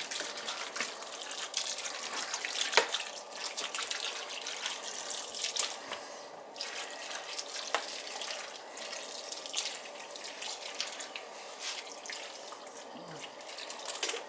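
Water running and splashing as it is added to a roasting pan of meat and vegetables, with a couple of brief clicks.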